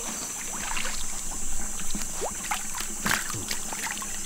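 Water splashing and sloshing in a pond as someone moves through it, in short irregular bursts.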